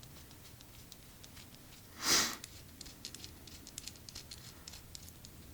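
Small clicks and scrapes of carburetor parts being handled as the throttle slide and cable top are fitted and screwed on. One short loud rushing noise about two seconds in.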